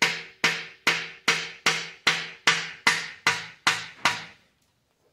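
A long screwdriver used as a drift, struck with a hammer about eleven times at a steady pace of roughly two and a half blows a second, each blow ringing briefly in the metal. The blows are driving a wrist pin out of a piston inside a Subaru EJ boxer engine, and stop about four seconds in.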